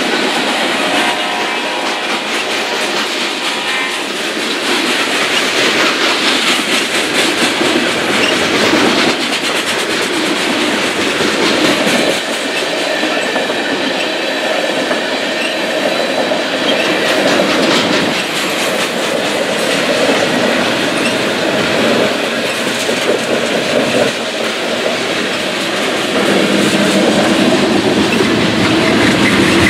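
Freight train cars, including tank cars, rolling past on steel wheels, clattering steadily over the rail joints.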